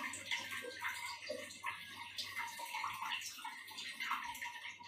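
Faint running and splashing water in a small tiled washroom, over a low steady hum.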